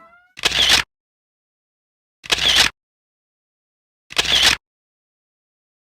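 Camera shutter click sound, three identical snaps about two seconds apart with dead silence between them.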